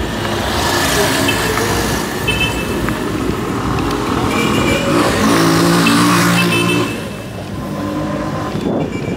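Busy city street traffic, with vehicles passing close by in two swells of road noise: one about a second in and a longer one from about four to seven seconds in.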